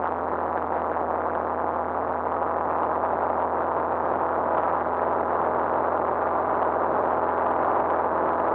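Light aircraft's piston engine and propeller droning steadily in cruise, heard inside the cabin as an even hum with several steady tones.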